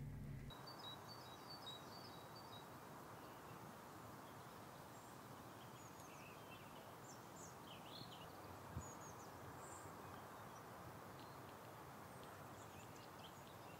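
Faint outdoor park ambience: a steady low hiss of background noise with small birds chirping here and there, including a short repeated twittering trill near the start. There is one soft knock about nine seconds in.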